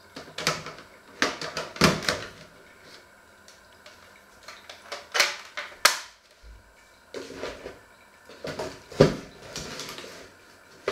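Irregular clusters of knocks, clicks and rustling handling noise, in about five groups with quiet gaps between them, the sharpest knocks about two, six and nine seconds in.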